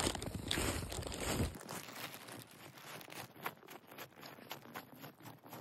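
Boots crunching through a thin layer of snow in irregular steps. A louder rustling noise with a low rumble fills the first second and a half, then only the scattered crunches remain.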